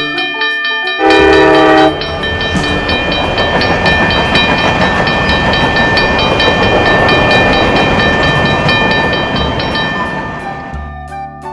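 A train sound effect: one horn blast lasting about a second, then a train running on the rails, which fades out near the end.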